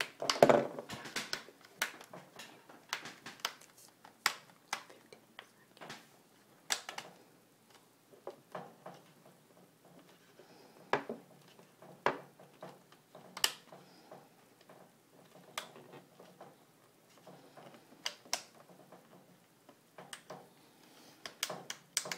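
Plastic screen bezel of a Toshiba Satellite L745 laptop being pressed by hand and clicking back into place: a close cluster of clicks and knocks at the start, the loudest, then scattered single clicks and taps every second or so.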